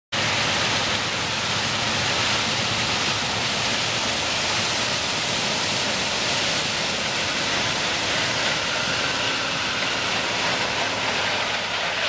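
John Deere 9660 STS combine harvester running as it cuts standing corn: a steady, even rushing noise with no distinct engine tone.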